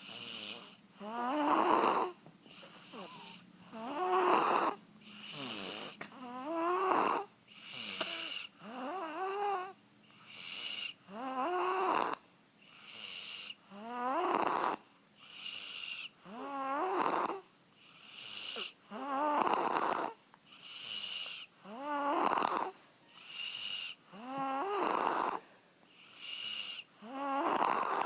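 A six-year-old child snoring. On each breath in there is a loud snore that rises in pitch, then a softer sound on each breath out, about one breath every two and a half seconds.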